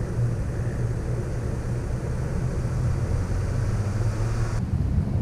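2021 Toyota Tacoma TRD Off Road's engine running steadily at low speed, with wind and tyre hiss, heard from a camera mounted on its hood. About four and a half seconds in, the hiss abruptly drops away and only the low hum remains.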